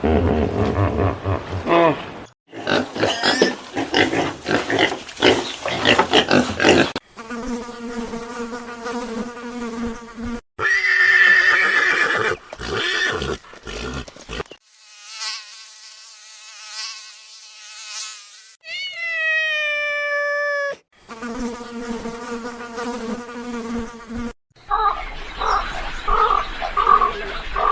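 A run of short animal-sound clips spliced one after another, several of them an insect's steady droning wing buzz, with other animal calls between, one of them a short falling cry.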